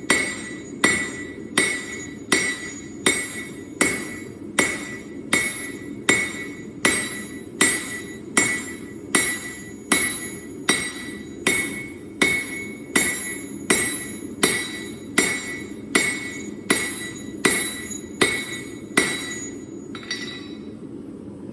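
Hand hammer striking steel on an anvil while forging Damascus, at a steady pace of a little over one blow a second, each blow with a bright metallic ring. The blows stop near the end, leaving a steady low rush underneath.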